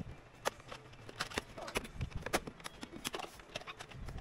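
Irregular small clicks and taps of hands handling an Asus X756U laptop's plastic bottom case and its open memory compartment, over a faint steady low hum.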